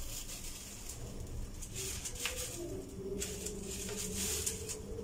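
Dry flour rustling and sliding around inside a greased steel cake tin as it is tilted and turned, with a few light scrapes against the metal.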